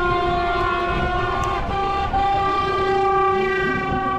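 A horn sounding one long, held blast that steps up slightly in pitch about two seconds in.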